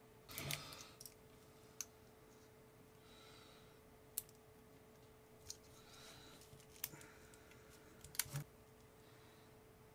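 Small plastic clicks and light handling from fingers working a LiPo balance plug's plastic housing, pressing its retention tab to slide a wire's crimped pin out. The clicks are faint and scattered, the loudest cluster about eight seconds in.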